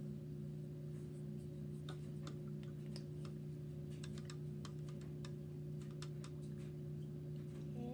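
Irregular light clicks and taps of a paintbrush and paint pots being handled on a table, over a steady low hum.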